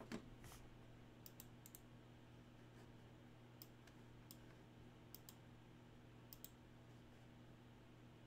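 Near silence: faint, scattered single clicks, about a dozen at uneven intervals, over a low steady hum.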